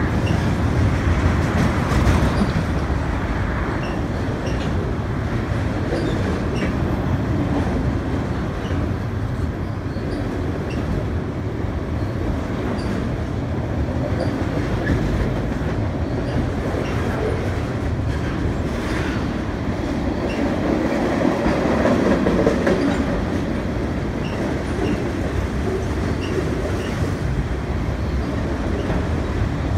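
Freight train of enclosed autorack cars rolling past, a steady rumble of steel wheels on the rails that holds at the same level throughout.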